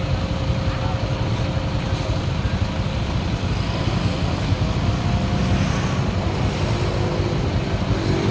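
Road traffic noise: the engines of cars, motorcycles and tricycles stopped in a jam, running as a steady low rumble.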